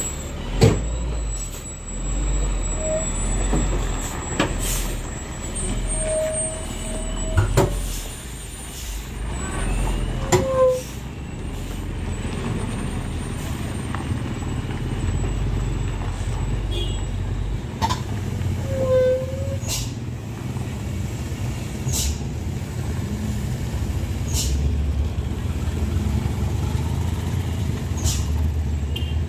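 Heavy truck's engine running steadily at low revs, with short sharp hisses or clicks every few seconds.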